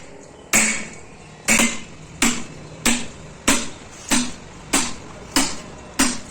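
Hammer blows, about nine sharp strikes with a brief ring after each. They come a little faster after the first two, then settle to about one and a half a second.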